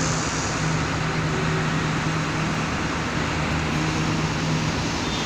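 Tracked hydraulic excavator's engine running steadily, a constant low hum over a loud, even mechanical noise.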